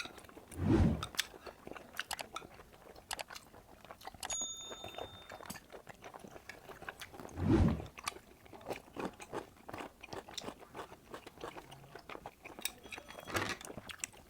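Close-up mouth sounds of a person chewing octopus: many small wet clicks and smacks, with two dull thumps, one about a second in and one about halfway through.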